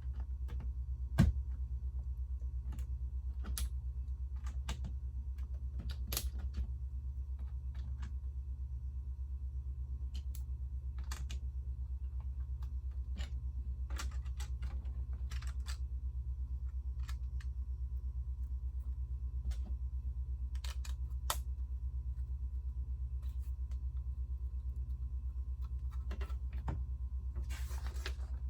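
Plastic Lego pieces clicking and tapping as they are handled and pressed together: scattered clicks, one louder about a second in, over a steady low hum.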